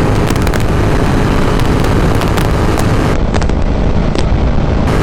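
Royal Enfield Continental GT 650's parallel-twin engine pulling hard at high road speed through a Red Rooster aftermarket exhaust, with heavy wind rush on the microphone. A few sharp exhaust cracks and pops stand out here and there.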